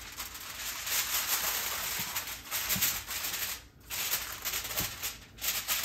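Aluminium foil crinkling as it is pressed and crimped down over the edges of a casserole dish, with two brief pauses, one a little past halfway and one near the end.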